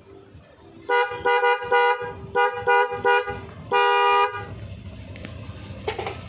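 Electronic police-escort siren unit sounding its horn tone: two quick runs of short, steady-pitched blasts, then one longer blast about four seconds in.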